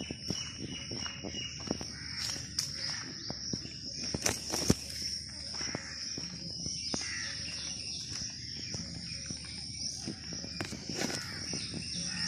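Crickets chirring in a steady, high, even tone, with scattered short calls of birds and soft footsteps on a dirt path.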